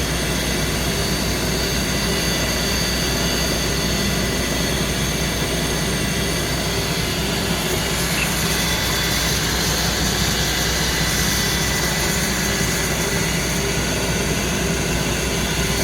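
Boyar Schultz No. 2 profile grinder running under power with its oscillating motion working: a steady machine hum with several steady high tones.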